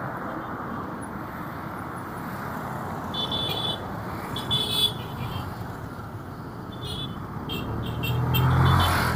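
Street traffic with a steady background of road noise; a vehicle horn gives two short high toots about three and four and a half seconds in, followed by a few quicker beeps and a vehicle passing close, loudest near the end.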